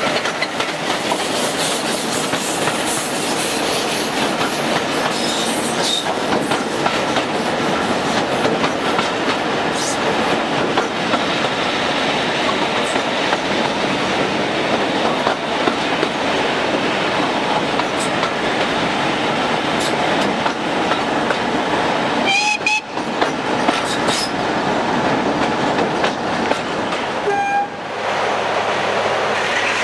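Railway coaches running along the track, with steady wheel and rail noise and clatter over the rail joints. Near the end a diesel locomotive's engine is heard running.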